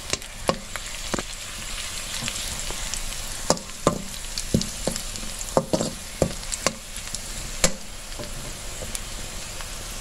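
Sliced onions, dried red chillies and cumin sizzling in hot oil in a black karahi, a tadka being fried, with a steady hiss. A perforated spatula stirs them, clicking against the pan about a dozen times at irregular moments.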